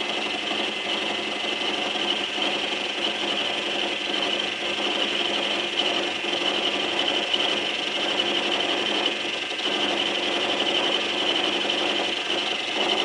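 Lathe running with a milling bit taking a light cut of about five thou into a metal block on a lathe milling attachment, fed by hand. A steady grinding whir with a continuous high-pitched tone, unchanging throughout.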